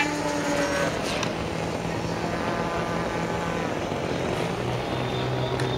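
Electric RC hotliner's motor and propeller whining in flight. The whine falls in pitch during the first second as the model passes, then settles into a steady distant drone that drops a little lower about four and a half seconds in.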